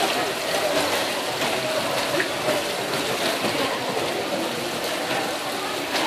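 Steady rush of running water splashing over rocks.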